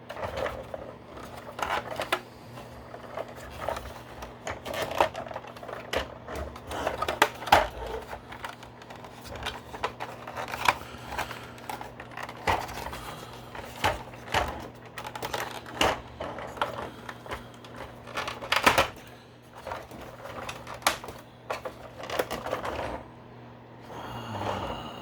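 Hard plastic parts of a G.I. Joe BUGG toy vehicle clicking, knocking and scraping irregularly as they are handled and pressed, while a wrongly fitted tab is worked at.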